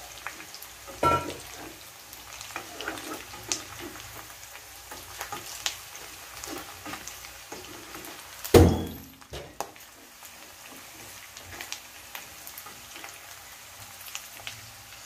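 Chunks of rendered pork belly frying and sizzling with onion and garlic in a pot while being stirred, the spatula scraping and knocking against the pot. The loudest knock comes about eight and a half seconds in, with a smaller one about a second in.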